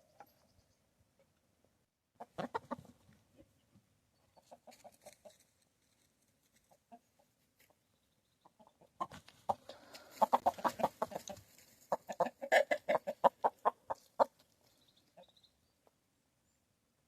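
Chickens clucking in quick runs of short notes: a brief bout about two seconds in, a softer one a couple of seconds later, and a longer, louder stretch of clucking in the second half.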